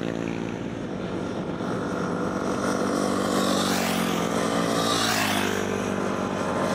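Yamaha WR250R dual-sport motorcycles riding by on a sealed road, their single-cylinder four-stroke engines running at steady throttle. The engine note wavers and a rush of road and wind noise swells about four to five seconds in.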